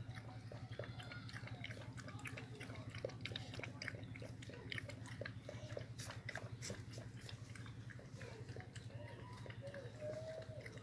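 A puppy lapping water from a plastic container: a quick, irregular run of small wet clicks and slurps, over a steady low hum.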